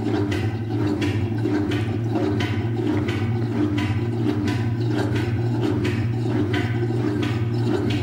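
Fisher & Paykel WashSmart 8.5 kg top-loading washing machine running through a test cycle with no clothes in it. A steady motor hum sits under a swish of water that surges in a regular pulse about every 0.6 s.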